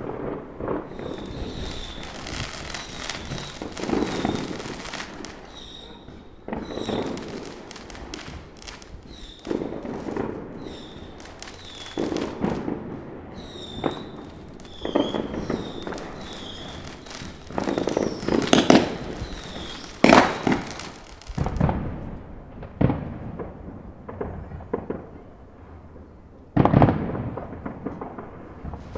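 Fireworks going off: continuous crackling and popping, laced with repeated short high screeches, and a series of heavy bangs. The loudest bangs come about two-thirds of the way through. The crackle stops about three-quarters through, leaving a few scattered booms, one more heavy bang near the end.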